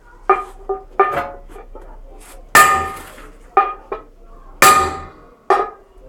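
A metal piece struck about nine times at uneven intervals, each strike ringing with the same clear bell-like tone; three of the hits are much louder and ring on longer.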